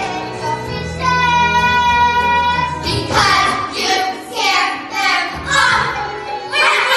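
Children singing a musical-theatre song over instrumental accompaniment: one long held note about a second in, then a run of short sung phrases.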